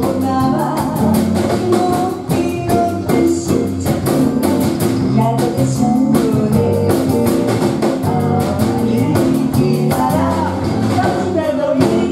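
Live band playing an upbeat Shōwa-era Japanese pop song: female lead vocal over electric guitars and a drum kit keeping a steady beat.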